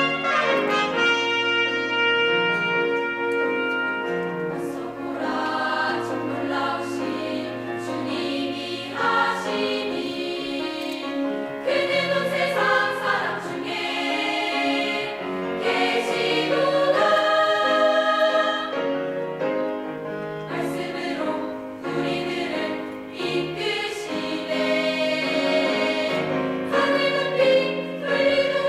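Girls' choir singing a Korean sacred choral piece with instrumental accompaniment. The voices come in a few seconds in, after a short instrumental passage of held notes.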